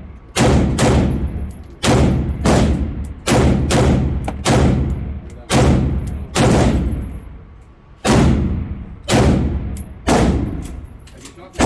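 Daniel Defense MK18 5.56 AR-pistol fired in slow semi-automatic strings: about a dozen single shots roughly a second apart, with a short pause about two-thirds of the way through. Each shot is followed by a long echoing decay.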